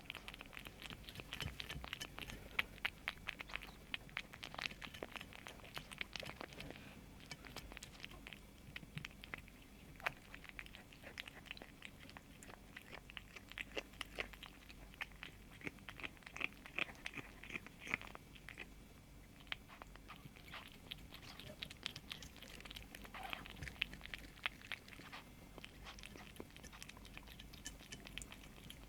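A kitten chewing and crunching food in quick, irregular small crunches.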